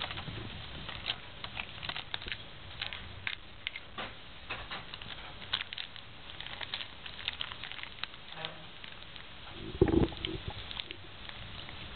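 A cat chewing and pawing at a cord toy on bedding: scattered small clicks and rustles from teeth and claws, with one louder low thump about ten seconds in.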